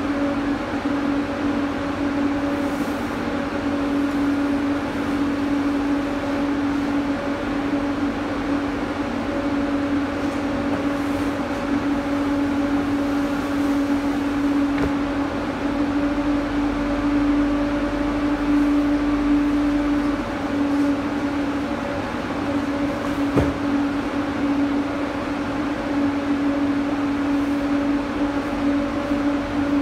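Refrigerated truck's cooling unit running with a steady hum and one strong low tone, with an occasional faint knock of a box or crate being set down.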